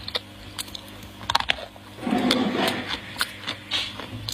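Dry clay being bitten and crunched in the mouth, close to the microphone: a few sharp, separate cracks, then about two seconds in a dense stretch of crunching chews lasting nearly a second, then more single cracks.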